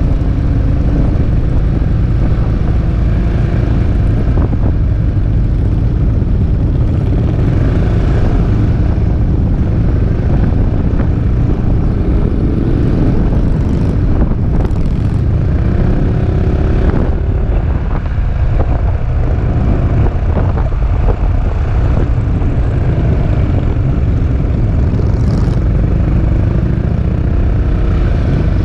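Peugeot Métropolis three-wheeled scooter's engine running at town speed under heavy, steady wind rumble on the action camera's microphone.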